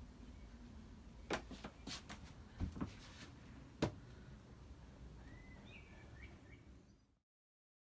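A handful of sharp clicks and knocks over a faint low hum, then a few faint bird chirps. The sound cuts off abruptly to silence near the end.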